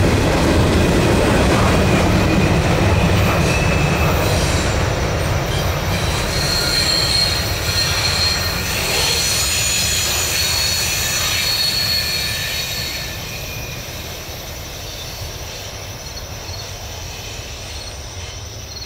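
Freight cars of a CSX mixed freight train rolling past on steel wheels, with a steady high wheel squeal in the middle. The noise fades after about twelve seconds as the train draws away.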